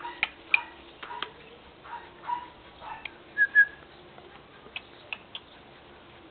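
A person calling a puppy with short high whistled chirps and repeated mouth clicks, the clicks spaced irregularly and the brightest pair of chirps about three and a half seconds in. The clicks thin out and grow fainter over the last couple of seconds.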